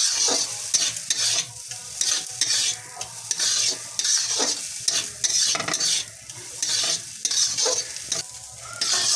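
Steel spatula scraping and stirring a coarse fried soybean mixture around a hot kadhai, one stroke about every half second, over the sizzle of the frying mixture.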